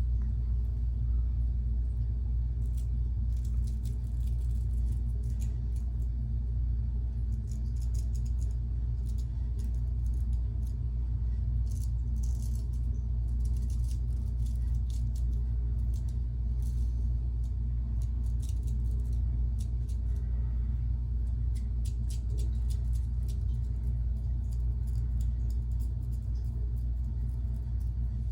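Faint, crackly scraping of a Weck Sextoblade razor cutting lathered stubble, coming in short strokes in several runs. Under it runs a steady low rumble that is louder than the scraping.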